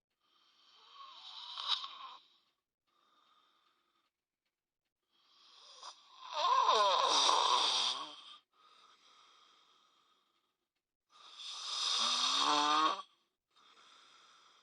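A person snoring heavily: three long, fluttering snores about five seconds apart, with fainter breaths between them.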